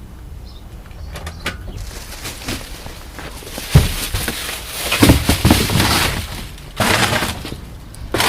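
Aerosol brake cleaner hissing in bursts onto a front brake assembly: a long hiss with small clanks, then a shorter burst near the end. A sharp metallic knock comes just before the spraying.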